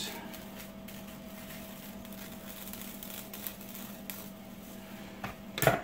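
Thin plastic shopping bag rustling and crinkling as it is cut with scissors and handled, with a louder knock near the end.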